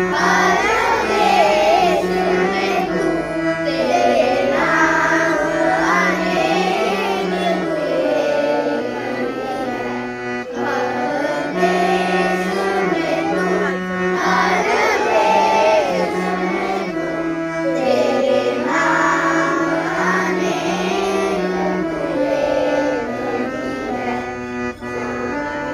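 Children's music band performing a song: young voices singing in phrases over an instrumental accompaniment of steady held notes that change in steps.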